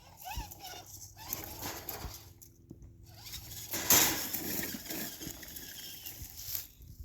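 Redcat Everest 10 RC crawler driving: its electric motor hums faintly under irregular scraping and patter of the tyres and body over the course, with a louder sudden scrape or knock about four seconds in.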